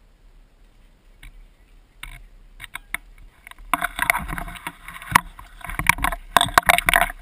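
Irregular rustling, scraping and clicking of gear and foliage against a gun-mounted camera as the airsoft player moves. Starts sparse and becomes dense and loud a little past the middle.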